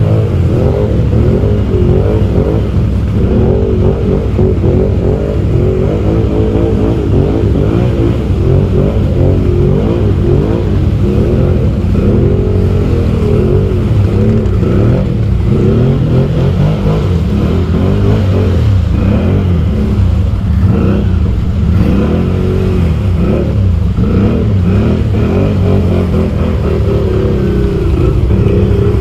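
ATV engine running under load through mud and water, its pitch rising and falling continuously as the throttle is worked.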